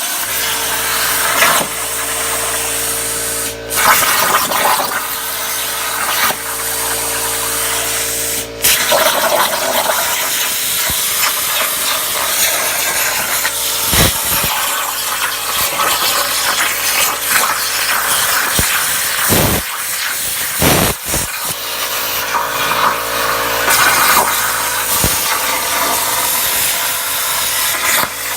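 Plasma cutter arc hissing steadily on a Langmuir Crossfire CNC table, over a steady machine hum. The arc breaks off briefly twice in the first nine seconds, and a few low thumps come later.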